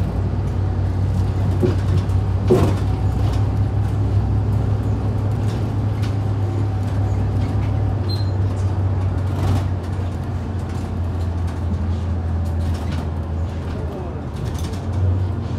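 Inside a Hyundai Super Aero City city bus driving in traffic: a steady low engine drone with road noise, and a few knocks and rattles from the cabin, the sharpest about two and a half seconds in.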